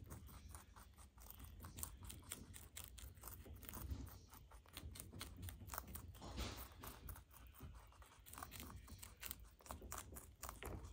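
Two baby rabbits chewing pale leaves: a faint, rapid run of small crunching clicks, with a brief louder rustle about six and a half seconds in.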